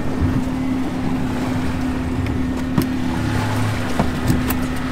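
Boat engine running steadily, a constant hum with a low rumble under it. A few sharp clicks come over it in the second half as the wire crab pot is handled on deck.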